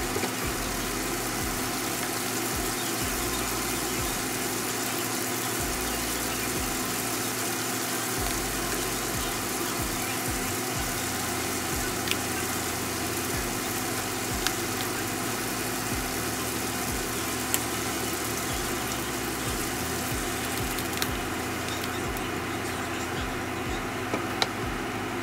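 Shrimp, spaghetti and garlic sizzling in olive oil in a frying pan, a steady crackling hiss with a few sharp ticks.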